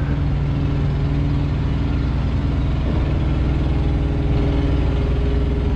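Diesel engine idling steadily, an even low drone that holds without change.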